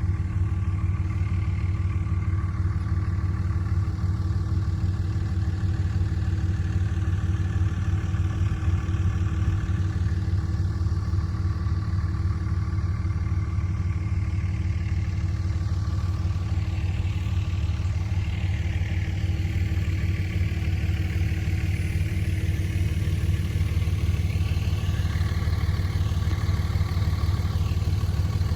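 A motor vehicle's engine running steadily, a low even drone that holds level throughout.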